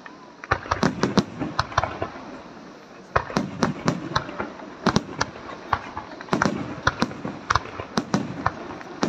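Aerial fireworks display: shells bursting in rapid, irregular bangs, several a second, with a short lull about two seconds in before the bangs pick up again.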